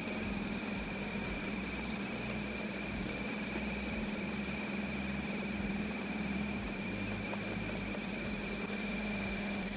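Electric meat grinder running steadily as it minces vegetables, a constant motor hum with a steady low drone.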